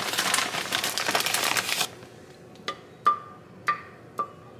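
A rustling clatter as a handful of meatballs is grabbed, lasting about two seconds. Then come four sharp knocks, each with a short ring, as the meatballs are set down into a ceramic slow-cooker crock.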